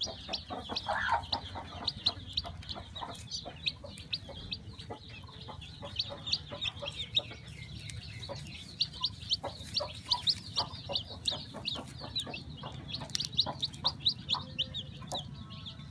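A newly hatching chicken chick peeping over and over: short, high-pitched peeps coming in quick runs, with faint clicks and taps underneath.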